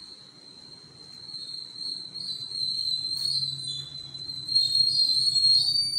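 A steady high-pitched whistle that drifts slightly up in pitch and grows louder, then cuts off suddenly just after the end, with a faint low hum underneath in the second half.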